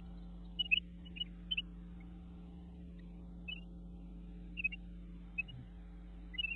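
Newly hatched great crested flycatcher chicks giving short, high peeps, singly or in quick pairs, every second or so, over a steady low hum.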